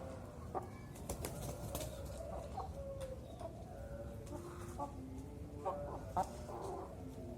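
Young derkuku doves cooing in short, low notes, with a few sharp knocks and wing flaps among them.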